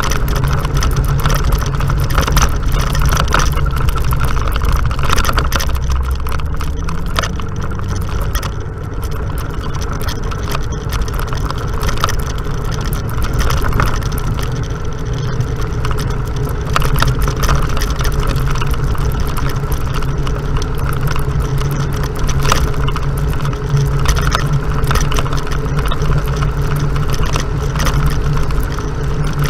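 Off-road vehicle engine running steadily while riding a bumpy dirt trail, with a constant clatter of small knocks and rattles. The revs climb briefly about seven seconds in, then drop back.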